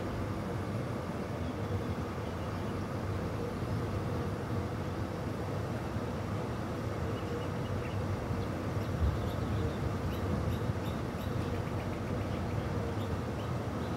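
Car engine idling with a steady low rumble.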